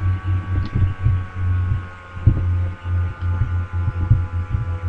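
Steady low electrical hum in a computer screen-recording setup, pulsing irregularly, with several steady thin whining tones above it and a couple of faint clicks, about half a second and three seconds in.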